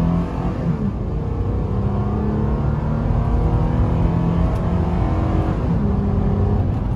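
Stock 2009 Toyota Tacoma pickup's engine under hard acceleration, heard from inside the cab. The engine note climbs steadily and drops twice as the transmission shifts up, about a second in and again near the end.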